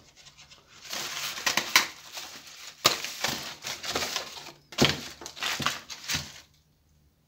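Pruning shears cutting through a green mango branch: a crunching noise broken by several sharp snaps.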